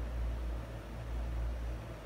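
A low, steady rumble of background machinery, swelling and easing slightly about once a second.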